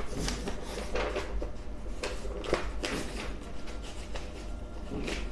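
Paper rustling and soft knocks from a spiral-bound notebook page being handled and smoothed down, over a steady low hum.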